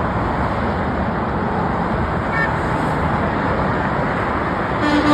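Steady freeway traffic noise, with a loud truck horn blast of one steady pitch starting near the end. A brief faint high beep sounds about halfway.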